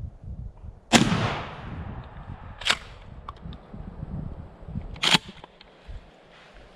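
A shotgun shot about a second in, with a long echoing tail, followed by two shorter, sharper clacks about two and four seconds later.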